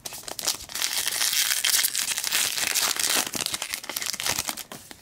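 A hockey card pack's wrapper crinkling and tearing as it is ripped open by hand: a dense, continuous crackle that stops just before the end.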